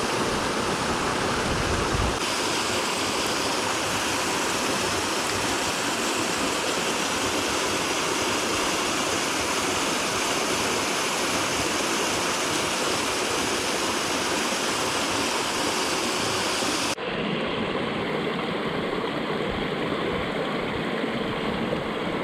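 Mountain stream, water rushing steadily. About 17 seconds in it changes abruptly to a duller, softer rush with less hiss.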